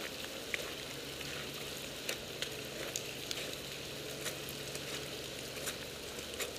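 Steady hiss of falling rain and hail, with irregular sharp ticks of drops and hailstones striking hard surfaces close by, several a second.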